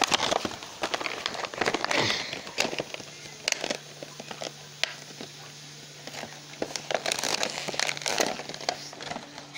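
Plastic toy packaging crinkling and crackling in irregular fits as it is handled and opened, busiest at the start and again about seven to eight seconds in.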